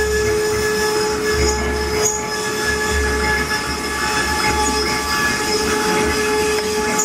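CNC wood-carving router running: a steady whine of several held tones over a noisy cutting hiss, with a low hum that comes and goes about once a second.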